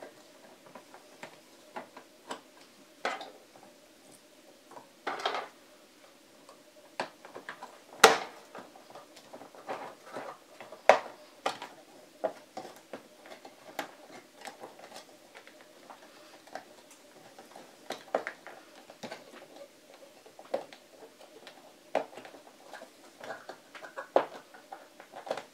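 18650 lithium-ion cells being pushed by hand into snap-together plastic cell holders, making scattered, irregular clicks and taps as the cells seat and lock. The sharpest knock comes about eight seconds in.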